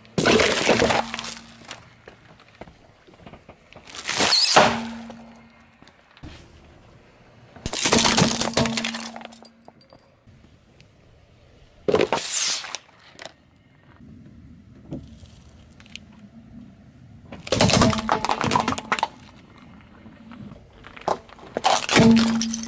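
Objects being crushed one after another under a slowly rolling car tyre: about six separate bursts of crunching and cracking, a few seconds apart. Among them are a cardboard gift box being flattened and a carton of fruit nectar bursting.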